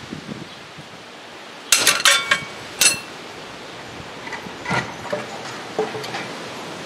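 A steel breaker bar and its pipe cheater bar clanging as a seized bolt on the front wheel hub breaks free: a burst of loud, ringing metal clanks about two seconds in and another just before three seconds, then a few lighter clinks.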